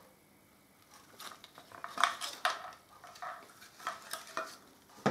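Light knocks and clinks of glass and ceramic decorative pieces being handled and set down on a hard surface, several in a row.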